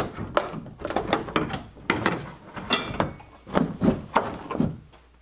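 Repeated knocks, clicks and rattles of gear and the cargo box's plastic and metal parts being handled while the box is packed and fitted.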